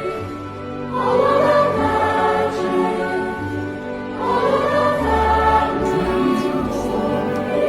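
Background music with choral singing, new phrases swelling in about a second in and again about four seconds in.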